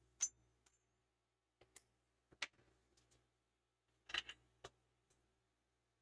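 Near silence with a handful of short, faint clicks and taps from soldering tools and desoldering wick being handled on the bench, with a faint low hum.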